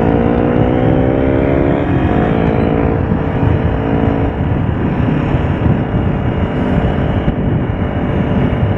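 Honda CBR500R's parallel-twin engine pulling up through the revs for about two seconds, then levelling off and fading under a steady rush of wind on the helmet-mounted microphone.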